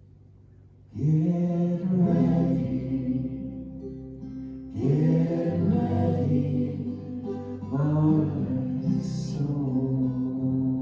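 Slow live worship music: after a quiet first second, three long sustained chords sound about a second, five seconds and eight seconds in, each ringing on into the next.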